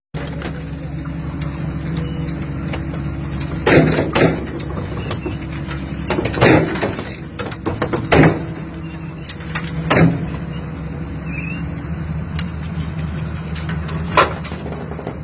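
Excavator diesel engine running steadily, with about six loud knocks from the machine at uneven intervals.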